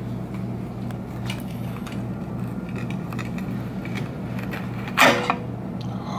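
Knife cutting a star fruit on a cutting board: a few light taps and clicks, then a sharp clack of the blade striking the board about five seconds in, over a steady low hum.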